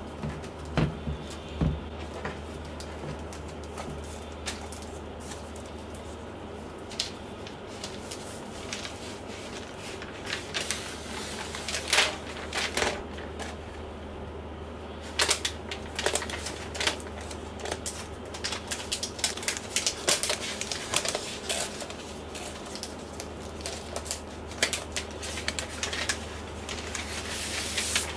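Hands handling a MacBook Pro and its packaging: a couple of soft knocks about a second in as the laptop is set down on the desk, then crisp crinkling and many small sharp clicks as its protective wrap is peeled back. A steady low hum runs underneath.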